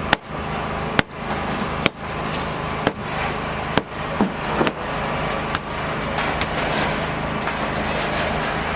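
Sharp knocks at a steady pace, about one a second, typical of hammer blows on a building site, over a steady mechanical rumble. The knocks stop a little past two thirds of the way in, while the rumble runs on.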